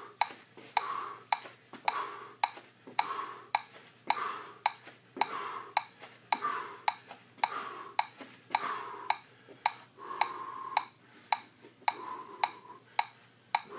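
Metronome clicking at a steady tempo, a little under two clicks a second, keeping the beat for the stair-stepping exercise, with softer noise between the clicks.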